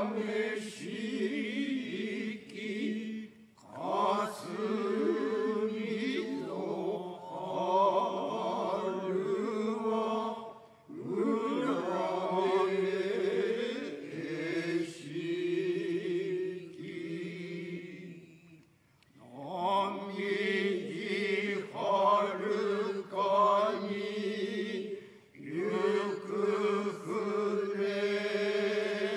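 Group of Kanze-school Noh chanters chanting utai together in long, drawn-out phrases, with short pauses for breath between them.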